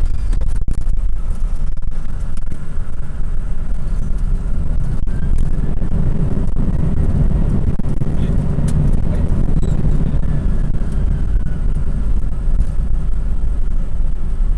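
Boeing 747-400 landing rollout heard in the cockpit: a loud, steady rumble of engines and wheels on the runway as the jet slows, heaviest around the middle.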